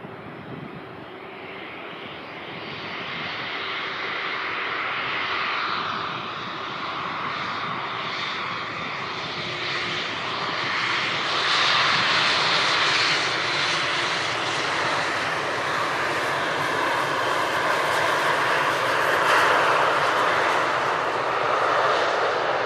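Airliner engines on landing approach, a steady rush that grows louder and brighter over about the first twelve seconds as the plane comes closer, then stays loud.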